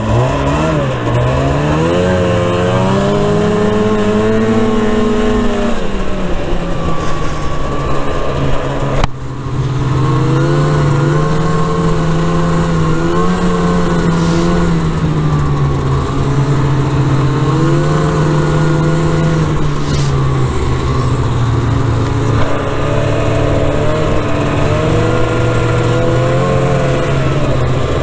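Arctic Cat snowmobile engine under way. It revs up over the first few seconds, eases off, then holds a steady speed with small rises and falls of the throttle.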